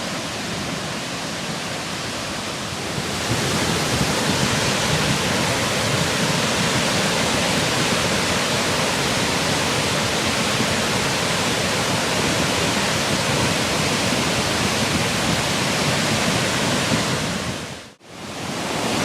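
Fast-moving floodwater rushing: a steady, even noise that gets louder about three seconds in and cuts off sharply near the end.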